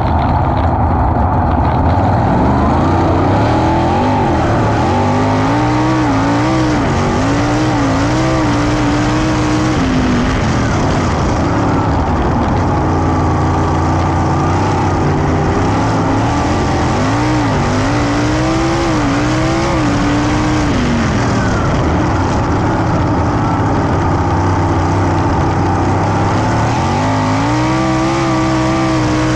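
A 410 sprint car's V8 racing engine running hard on a dirt oval, heard on board. Its pitch climbs and wavers down the straights, then falls off as the driver lifts for the corners. This happens twice, and the engine climbs again near the end.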